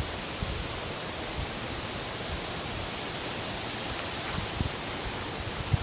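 Steady hiss of outdoor background noise, with a few short low thumps near the end.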